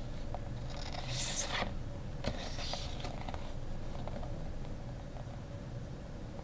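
Large photo prints sliding against each other as the top sheet is drawn off the stack: two brief papery swishes about one and two seconds in, with a few light taps of the sheets against the table.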